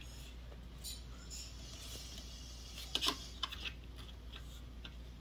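Faint steady hum from a Fishman Loudbox Artist acoustic amplifier, with a few small clicks and ticks as its control knobs are handled, a short cluster about three seconds in.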